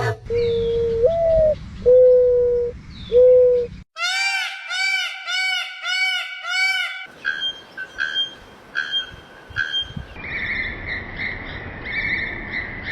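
Several different bird calls cut one after another: first three low whistled notes, one stepping up in pitch, then a fast series of arched ringing notes about three a second, then a run of short, higher repeated calls.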